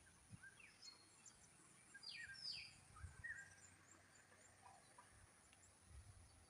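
Faint birdsong: several birds chirping and whistling, with a few quick downward-sweeping calls, over a steady high insect drone.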